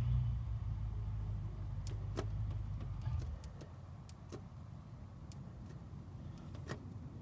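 A low, steady engine hum that dies away about three seconds in, followed by a few sharp, light metallic clicks.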